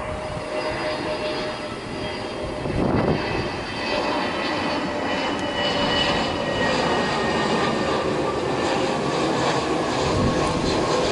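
Airbus A320neo airliner on final approach with its gear down, its jet engines whining and rumbling and growing louder about four seconds in. Gusts of storm wind buffet the microphone.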